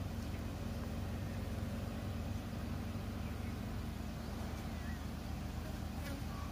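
A motor vehicle's engine idling steadily, a low even hum, with a faint bird chirp about five seconds in.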